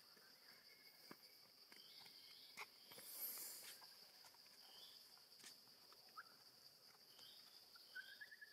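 Faint, steady high insect drone from the forest, with scattered short high chirps and a few faint clicks, and a quick run of rising chirps near the end.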